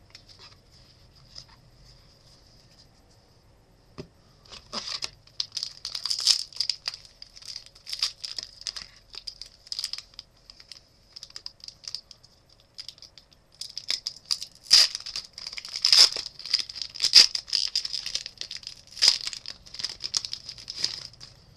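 Trading card pack wrapper crinkling and tearing as it is handled and opened, in two spells of irregular rustling, the second louder.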